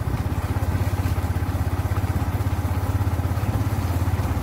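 Motorcycle engine running steadily as the bike rides along, with a rapid, even pulse and no revving.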